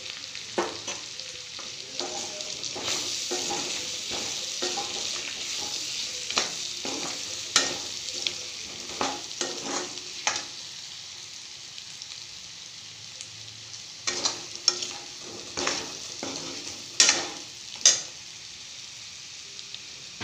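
Pork and potatoes sizzling in a metal wok, frying in the pork's own rendered fat with no oil added, while a steel spoon stirs them and scrapes and clicks against the pan. The sizzle is stronger in the first half and eases off; the sharpest spoon knocks come near the end.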